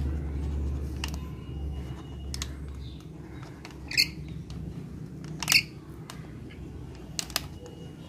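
A rainbow lorikeet feeding from a hand-held clear plastic container of rice, with scattered sharp clicks of beak and plastic being handled. Two short, sharp higher sounds come about four and five and a half seconds in.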